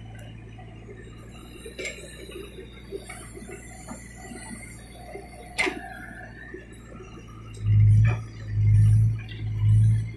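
Backhoe loader's diesel engine running with a steady low hum, swelling louder three times in the last couple of seconds as the rear bucket digs into the soil pile.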